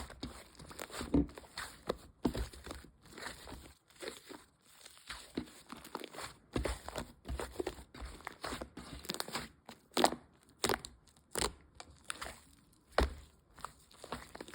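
Hands handling packaging materials: irregular crinkling and rustling, with tearing sounds. A few sharper, louder clicks come in the second half.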